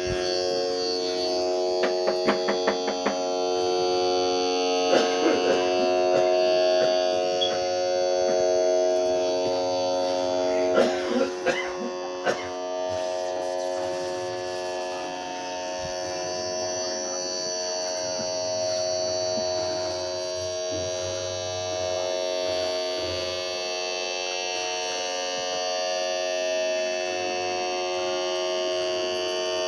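A slowed-down sound effect: a steady, buzzing drone of several held tones, with short runs of clicks about two, five and eleven seconds in.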